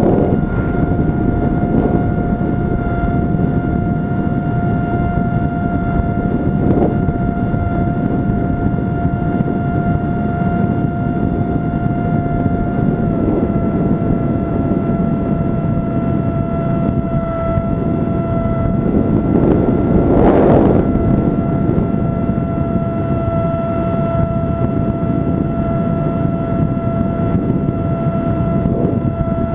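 RC model airplane's motor and propeller running at a steady high pitch, picked up by a camera on board, over wind rushing across the microphone. About twenty seconds in there is a brief louder rush of wind.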